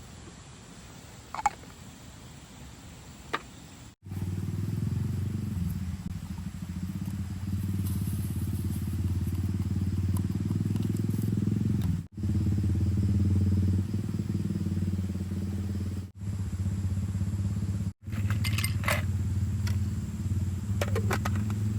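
A motor running with a steady low hum, starting abruptly about four seconds in, with a few sharp breaks where it cuts out for an instant. A few faint ticks come before it.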